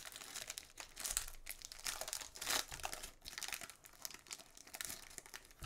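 Plastic wrapper of a basketball trading card pack crinkling and rustling in irregular crackles as it is torn open and peeled off the cards by hand.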